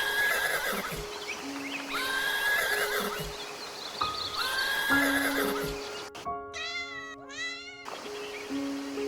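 Three similar animal calls about two and a half seconds apart, over light background music. At about six seconds the sound cuts to a different animal giving two calls that bend up and down in pitch.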